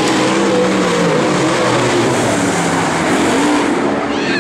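Several dirt-track Modified race cars' V8 engines running around the oval, their engine notes rising and falling over one another as the cars lap.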